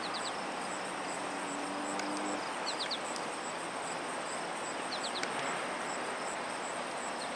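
Outdoor ambience: a steady hiss with a high, pulsing insect trill throughout, and a small bird chirping in quick runs of three high notes, three times.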